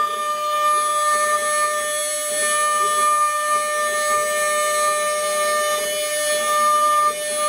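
CNC router spindle running with a steady high whine while its carving bit cuts a relief into wood, with rougher, shifting cutting noise beneath. The whine dips briefly near the end.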